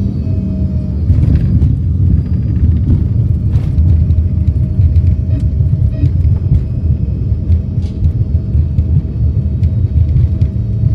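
Cabin rumble of an Embraer ERJ-135 regional jet rolling down the runway after touchdown: a heavy, steady low rumble from the tyres and airframe with a steady engine hum, broken by scattered knocks and rattles.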